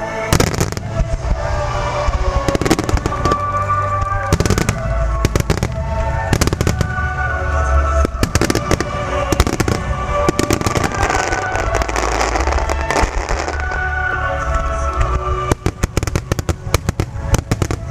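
Aerial fireworks shells bursting again and again over music. Near the end the bursts turn into a rapid string of crackles.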